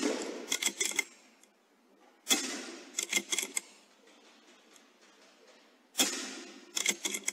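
Three shots from an Airmaks Krait L .22 air rifle: sharp reports about two to four seconds apart. Each report trails off over about a second and is followed by a quick run of three or four clicks as the action is worked for the next pellet.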